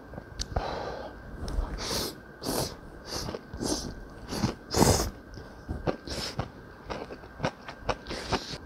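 Jjamppong noodles slurped in a run of short, quick sucking pulls, the loudest about five seconds in, then chewing with small wet clicks.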